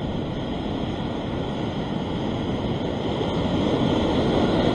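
Ocean surf washing and breaking over shoreline rocks as a steady rushing, swelling louder near the end as a wave breaks.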